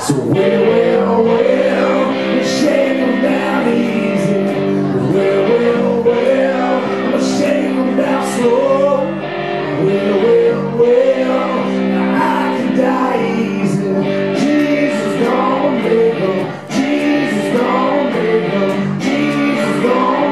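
Electric blues guitar played on a semi-hollow-body electric through a small combo amp, a continuous instrumental passage with notes sliding up and down.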